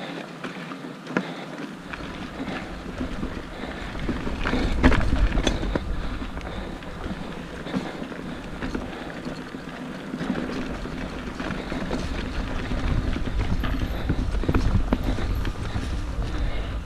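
Mountain bike riding over rough trail, heard through a GoPro: wind rumbling on the microphone, with frequent knocks and rattles from the bike over bumps. It grows louder about two seconds in and is loudest around five seconds in and again in the second half.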